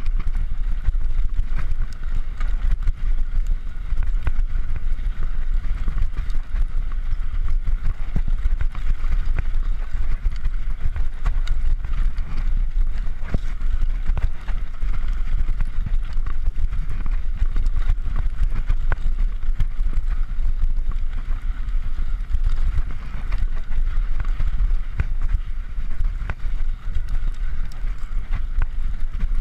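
Mountain bike rolling fast over a bumpy dirt trail: a steady low rumble of wind on the camera microphone and tyres on the ground, with frequent small rattles and knocks from the bike over the bumps.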